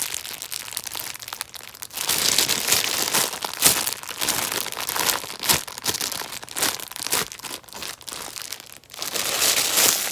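Plastic packaging crinkling and crackling around a bun squishy as it is squeezed by hand again and again, in repeated surges.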